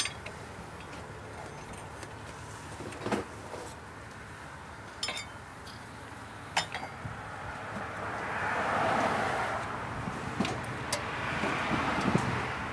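Scattered clinks of a wrench and socket against metal as the bottom pivot bolt of the alternator bracket is worked loose, engine off. A broad rushing noise swells and fades over the last few seconds.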